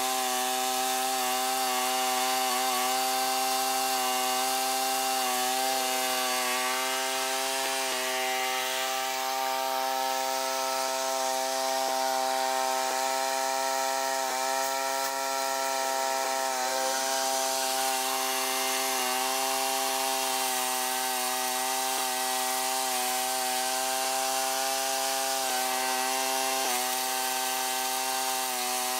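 Allis-Chalmers 410 garden tractor engine running steadily while driving its rear rototiller through soil. The pitch dips slightly now and then as the tiller takes load.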